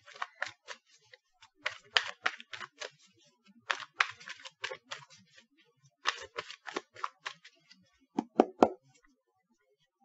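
Gilded Tarot deck being shuffled by hand: bursts of quick, crisp card clicks and riffling, with a few harder slaps of the cards about eight seconds in, then stopping.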